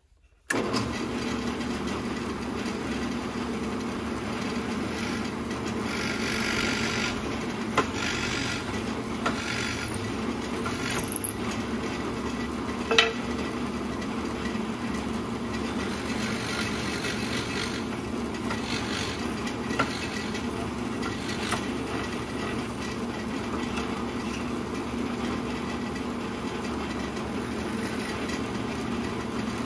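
Benchtop drill press switched on about half a second in and running with a steady hum as a 1/4-inch bit bores holes through an oak keel blank. Short spells of cutting noise and a few sharp knocks come in between as the bit goes in and the blank is moved.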